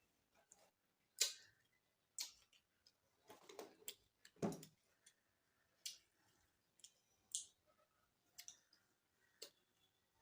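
Quiet eating sounds: scattered soft clicks and smacks at irregular intervals as people eat a meal of rice and chicken curry.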